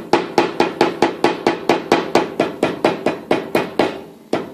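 Plastic face of a soft-faced hammer tapping quickly on masking tape over the edge of a cast-iron lathe gearbox housing, about four to five taps a second, trimming the tape along the edge. The tapping pauses briefly near the end, then starts again.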